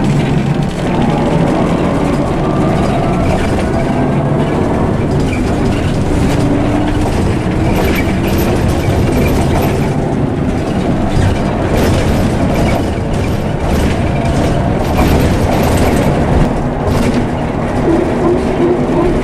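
Inside a moving Ikarus EAG E94 bus: the Scania diesel engine running steadily under the noise of the road, with panels and fittings rattling. A run of clicks and knocks comes in about halfway through.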